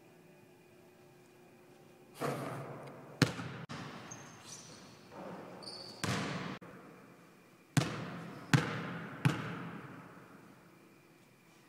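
Basketball hitting a hardwood gym floor: a string of sharp bangs, each with a long echo dying away in a large hall, starting about two seconds in. A few short high squeaks come in between.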